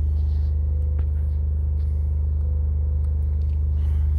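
DS18 Elite Z15 15-inch subwoofer playing a very low test tone turned all the way up in free air, with no enclosure, its cone making long strokes: a loud, steady deep hum with overtones stacked above it. A small click about a second in.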